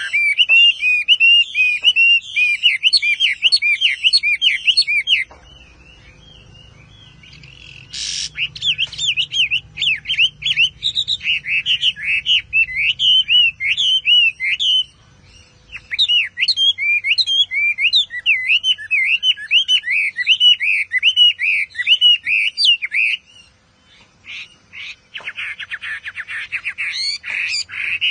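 Chinese hwamei singing a loud, fast, varied whistled song in long runs, broken by short pauses about five, fifteen and twenty-three seconds in. Near the end it breaks into a dense, fast buzzy trill.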